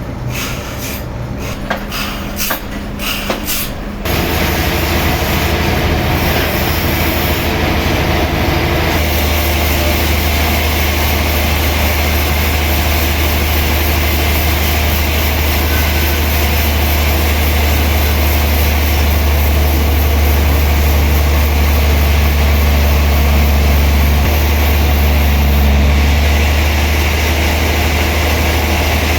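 Heavy sawmill machinery running, a steady low hum with a noisy hiss over it. For the first few seconds it is broken by irregular knocks, then it settles into a constant drone about four seconds in.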